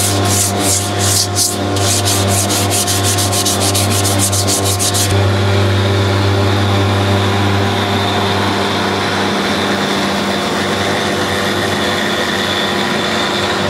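Hand scuffing with a red abrasive pad on the textured grey coating of a subwoofer box's window lip: rubbing strokes that quicken to about seven a second, then stop abruptly about five seconds in. A steady hum with several fixed tones runs underneath.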